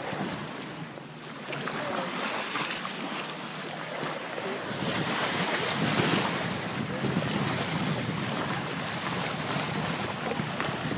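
A sailing yacht's bow wave rushes and splashes along the hull as the boat moves through the water, with wind buffeting the microphone. The rush grows louder about five seconds in.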